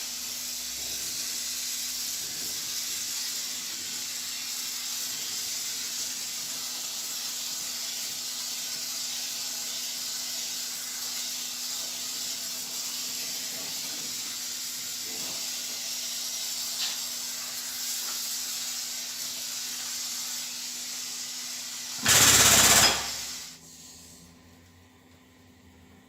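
Steady, loud hiss with a faint steady hum under it, then a brief, much louder hissing burst about 22 seconds in, after which it drops away to a quiet background.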